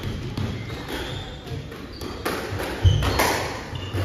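Squash rally: the ball cracking off rackets and the court walls, with players' shoes squeaking on the wooden floor. The loudest hit, a deep thud, comes about three seconds in.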